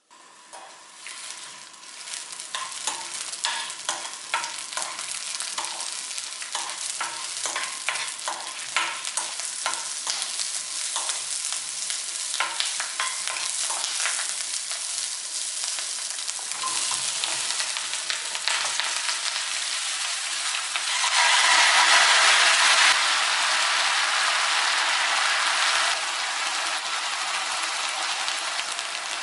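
Shishito peppers frying in perilla oil in a wok, sizzling while a wooden spatula stirs them and clicks and scrapes against the pan. About two-thirds of the way through the sizzle grows louder and fuller for a few seconds, then eases back; by the end sliced onions are frying in the wok too.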